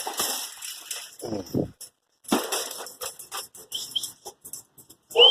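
A dog barking twice, short and falling in pitch, amid rustling and clicks of things being handled, with short high whistles near the end.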